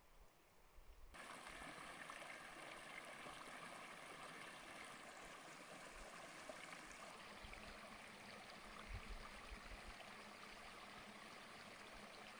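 Small forest brook running and babbling over stones and tussocks, a steady rush of water that starts about a second in.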